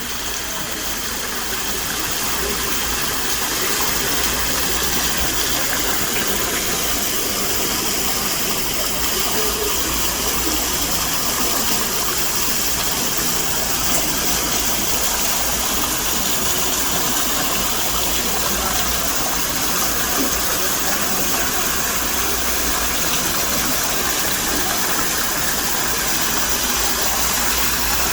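Decorative waterfall: a steady rush of falling water, getting a little louder over the first few seconds and then holding even.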